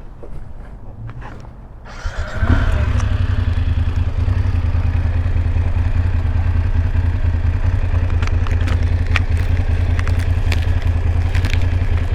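BMW F850GS parallel-twin motorcycle engine, quieter for the first two seconds, then pulling away about two seconds in with a brief rise in pitch. It then runs steadily at road speed with a loud low rumble. Scattered sharp ticks come in over the second half.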